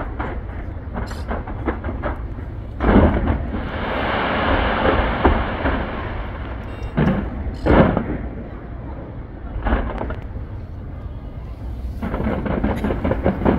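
Fireworks fired from the sides of the Taipei 101 skyscraper: rapid sharp crackling, then a heavy bang about three seconds in followed by a few seconds of dense hissing crackle. Two more booms follow around seven to eight seconds and another near ten, with rapid crackling returning near the end.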